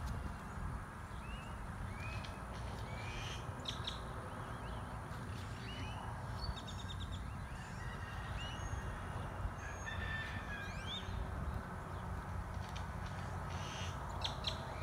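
Outdoor birdsong: several wild birds giving short chirps and calls, with a quick trill, over a steady low rumble.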